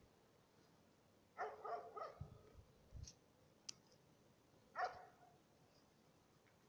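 A dog barking faintly: a quick run of barks about a second and a half in and one more bark near five seconds, with a few small clicks in between.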